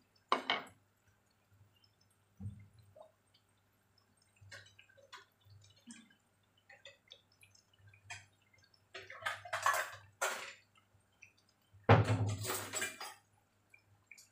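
Battered tempe mendoan frying in shallow oil in a wok, crackling with scattered short pops, the slices about done. Two louder noisy bursts come about nine and twelve seconds in, over a steady low hum.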